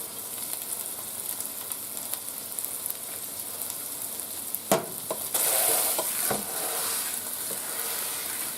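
Ground beef frying in a skillet, with a steady sizzle. About halfway through, a utensil taps sharply on the pan, and the sizzle grows louder for a moment just after.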